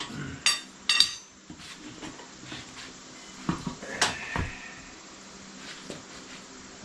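Sharp metal clanks from a tire changer and tire tools working the bead of a small tire off its rim: two close together near the start, then a few more past the middle, one leaving a short ringing tone.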